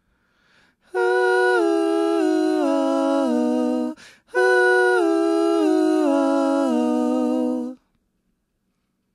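A single unaccompanied voice humming a wordless melody in two long phrases, each stepping down in pitch, with a short break between them about four seconds in.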